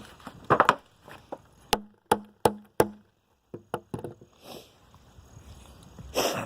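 Sharp knocks of a hand tool striking a fidget spinner on a wooden plank while working its bearing loose: four quick strikes about a third of a second apart, each with a short ring, then a few lighter taps and a brief rustle near the end.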